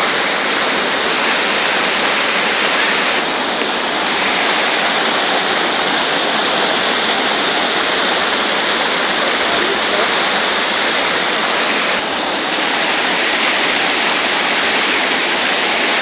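Small jungle waterfall rushing over rocks into a plunge pool close by, a steady, even rush of falling water.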